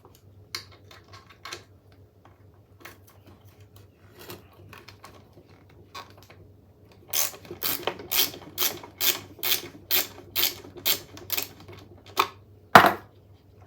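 Regular sharp mechanical clicking, about two clicks a second for roughly five seconds after a few scattered softer ticks, with one louder click near the end. It comes from a road bike's parts or tools being worked by hand during disassembly.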